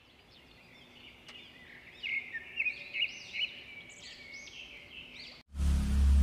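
Birds chirping and whistling, many short rising-and-falling calls that fade in and grow louder about two seconds in. A little over five seconds in they cut off abruptly and a loud low rumble takes over.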